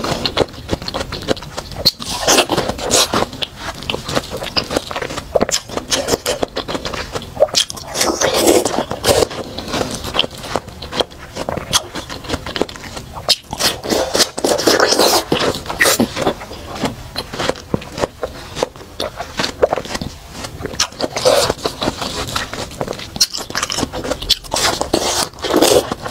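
Close-miked bites into watermelon flesh, with wet crunching and juicy chewing. Bites come in clusters several seconds apart.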